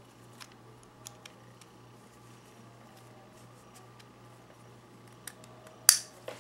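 A few faint handling clicks, then one sharp plastic snap about six seconds in: a contoured side-release buckle on a paracord bracelet clicking shut as it is fastened around the wrist.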